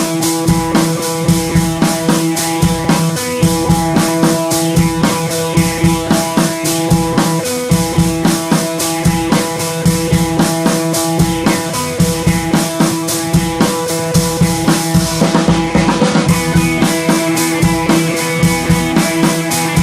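Background music: drum kit playing a steady beat under guitar and sustained chords.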